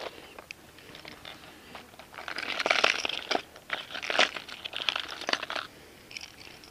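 Rummaging through a clear plastic tackle box of fishing lures: a few sharp clicks, then a couple of seconds in a busy run of rattling and clicking as lures and hooks knock against each other and the plastic.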